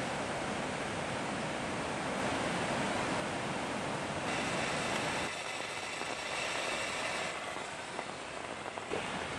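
Mountain stream rushing over rocks: a steady noise of running water. About five seconds in it becomes thinner and lower in level, and a couple of faint knocks come near the end.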